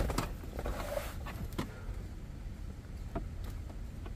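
A handful of light clicks and rustles from plastic wiring-harness connectors and wires being handled and pulled apart, over a steady low rumble.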